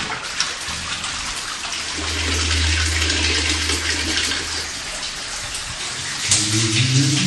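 Water running and splashing through old mine workings, a steady rushing hiss. A low steady hum comes in about two seconds in and stops a few seconds later, and a few low tones start near the end.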